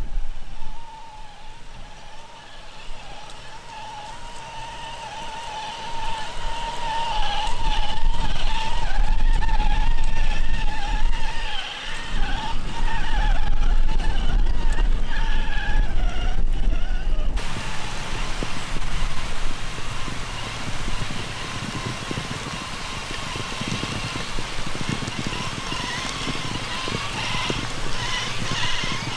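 Electric RC crawler truck (Traxxas TRX-4 with a HobbyWing XeRun sensored brushless motor) whining as it drives over grass and mud, the pitch rising and falling with the throttle. The sound changes abruptly about 17 seconds in, then the whine carries on.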